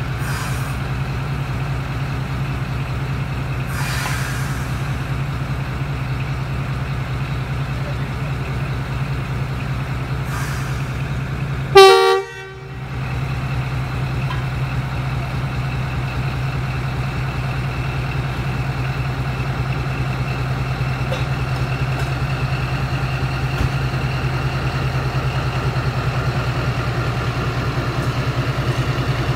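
Pakistan Railways ZCU-20 (GE U20C) diesel-electric locomotive running with a steady low engine hum as the train pulls out of the station. One short, loud horn blast sounds about twelve seconds in.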